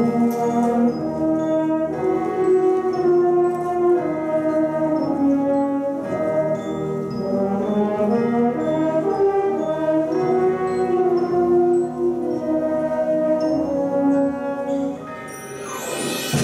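School concert wind band playing a sustained, brass-led melody. Near the end the band drops back briefly, then a rising sweep leads into the next phrase.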